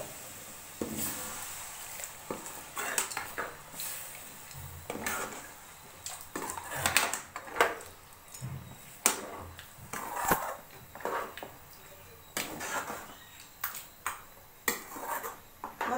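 Steel ladle scraping and clinking against a steel kadai while stirring a thick masala, in irregular strokes.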